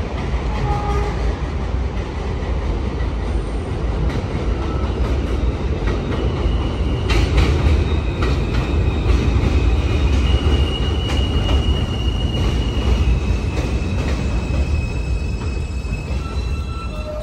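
New York City subway train rolling along the elevated tracks and past, with a steady rumble of wheels on rail and clacks over the rail joints. A high-pitched wheel squeal sets in about six seconds in and holds to the end.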